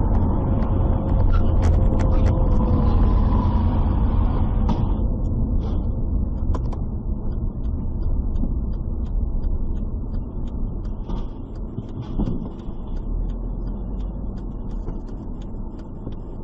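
Car driving, heard from inside the cabin: a steady low rumble of engine and road noise, with a faint falling whine in the first few seconds and a few scattered light ticks.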